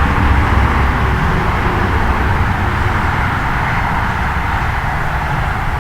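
Steady noise of road traffic going by on a busy road, a continuous low rumble that eases slightly toward the end.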